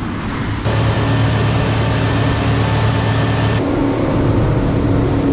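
A motorboat running at speed: a steady engine drone under the rush of wind and water past the hull. The level steps up sharply about a second in.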